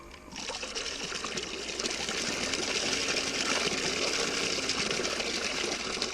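Water rushing from a small water pump just switched on, starting suddenly about a third of a second in and building to a steady gush, with a faint motor hum beneath.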